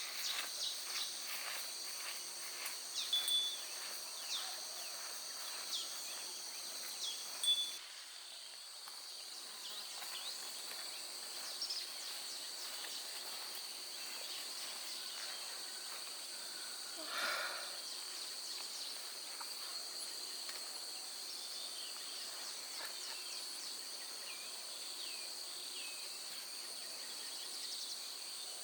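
A steady high-pitched chorus of insects such as crickets, with scattered light ticks through it. The background shifts about 8 seconds in, and one short louder sound stands out near the middle.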